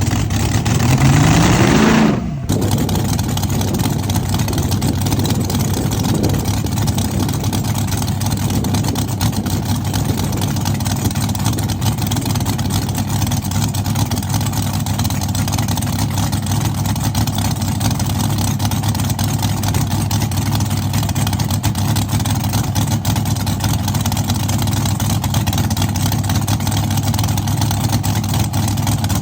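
Drag car engine revved up with a rising pitch that drops off abruptly about two seconds in, then settles into a steady, loud, low-pitched idle.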